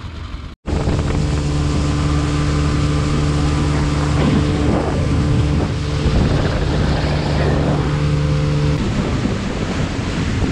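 Motorboat engine running steadily under way, with wind buffeting the microphone and water rushing past. The engine's steady hum stops about nine seconds in while the wind and water noise carries on.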